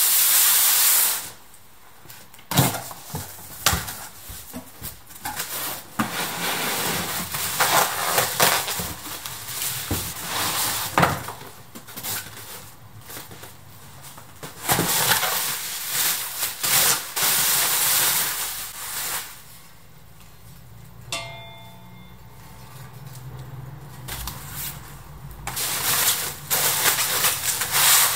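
Cardboard box flaps and the plastic wrapping around a motorcycle seat being handled, rustling and crinkling in bursts with occasional knocks. A loud, short burst of hissing noise comes right at the start.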